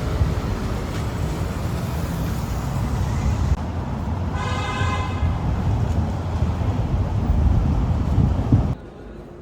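Steady road-traffic rumble with a car horn sounding once, briefly, about halfway through. The traffic noise cuts off suddenly near the end.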